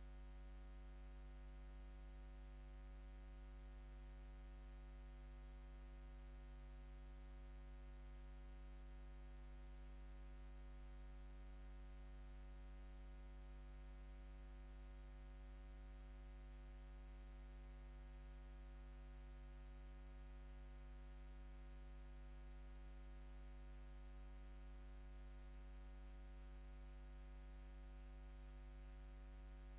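Near silence: a faint, steady electrical hum with a thin high whine above it.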